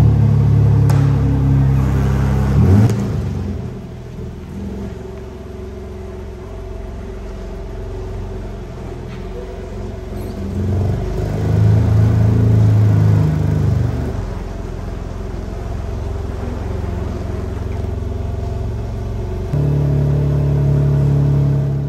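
2024 BMW M3 Competition Touring's twin-turbo 3.0-litre inline-six running: it opens at a high idle just after starting, settles to a lower idle after about four seconds, rises again briefly around the middle, and steps up once more near the end.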